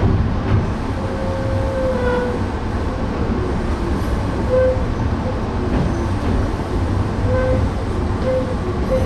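Electric passenger train running, heard from inside the car: a steady low rumble of wheels and running gear, with brief faint squeals now and then.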